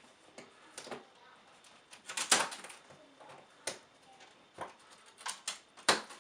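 Plastic packing straps being taken off a large cardboard box: scattered sharp clicks and snaps with some rustling, loudest about two seconds in and again near the end.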